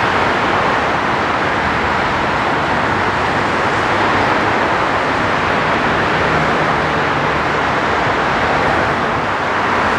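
Steady rush of freeway traffic, a continuous even noise of tyres and engines with no single vehicle standing out.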